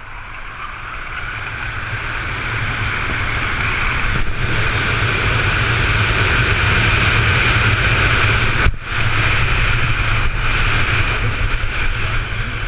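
Wind rushing over a ski jumper's helmet-mounted camera. It grows louder over the first few seconds as speed builds down the in-run track, then holds a steady loud rush through the take-off and flight, with a brief dip about nine seconds in.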